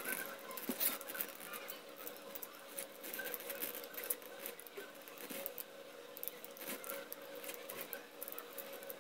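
Thin wire being wound by hand around a small plastic rotor to make a motor coil: irregular light ticks and scratches as the wire drags and snaps against the plastic and fingers, over a faint steady hum.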